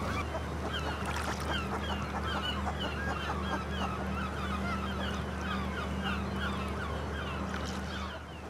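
Seabirds calling over open water: a rapid, continuous run of short squawking calls from several birds, with a steady low hum underneath.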